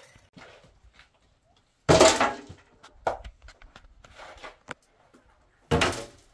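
Household things being handled and set down: two loud clattering thumps, about two seconds in and near the end, with lighter knocks and rustling between.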